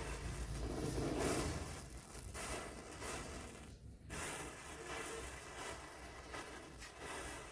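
A chain of matchsticks burning, the match heads flaring one after another in a run of fizzing hisses as the flame creeps along the row, with a short lull about four seconds in.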